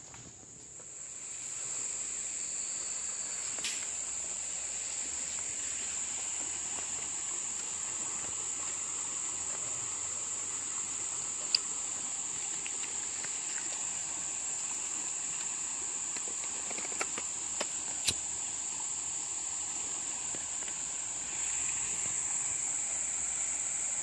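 Steady, high-pitched drone of insects, swelling in over the first couple of seconds and then holding. A few sharp clicks stand out, one about halfway through and another about three quarters through.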